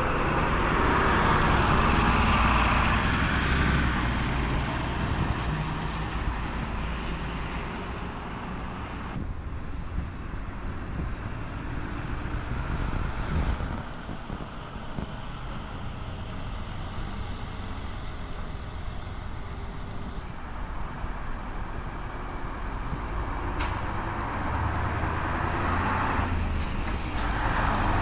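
Diesel buses driving past with engine and tyre noise. One passes close at first and fades as it pulls away, and the sound rises again near the end as a highway coach approaches.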